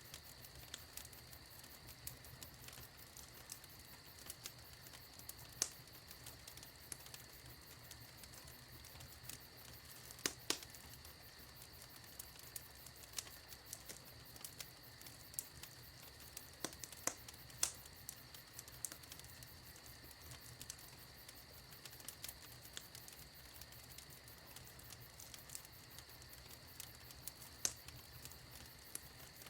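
Wood fire in a fireplace crackling: a constant scatter of small snaps and ticks over a soft hiss, with a handful of louder pops spread through.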